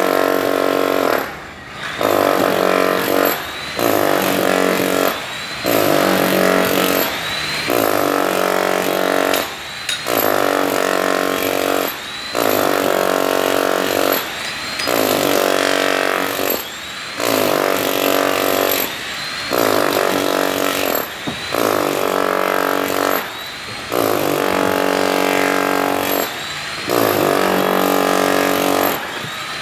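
Power drill run in repeated trigger bursts, about one every two seconds. Each burst starts with a rising whine as the motor spins up, then runs steadily before a brief drop.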